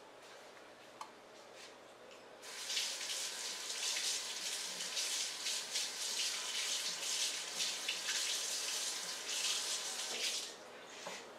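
Kitchen tap running into a sink for about eight seconds, turned on a couple of seconds in and shut off near the end.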